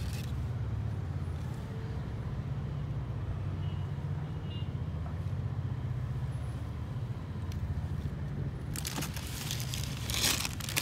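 Steady low background rumble. About nine seconds in, a couple of seconds of crackling and rustling as the shoe is handled against crinkly tissue paper and its cardboard box.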